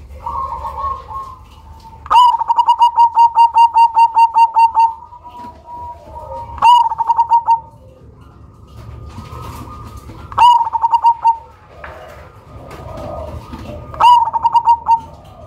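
Black cemani zebra dove (perkutut) singing with a big voice: four bouts of rapid staccato cooing, each opening with a sharp rising note. The first bout, about two seconds in, is the longest, at about five notes a second.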